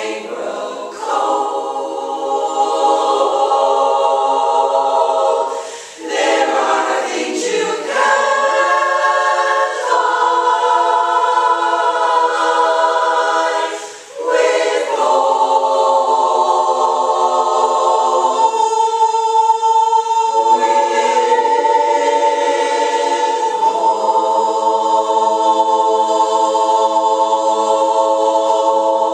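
Women's a cappella chorus singing in harmony, the closing phrases broken by short breaths about six and fourteen seconds in, then one long held chord that cuts off near the end.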